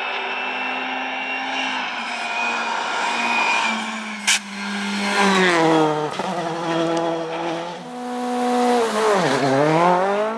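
Rally car engine held at high revs, with a sharp bang about four seconds in, then the revs falling and climbing again through gear changes, dropping steeply and rising once more near the end as the car brakes and accelerates.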